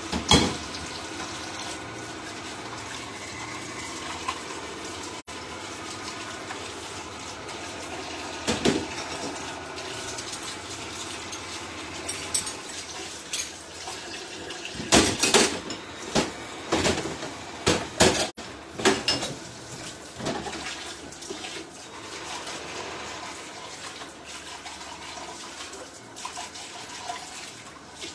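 Kitchen tap running into a sink while things are rinsed under it, with sharp clatters and knocks of items being handled: one loud clatter just after the start and a run of them in the middle.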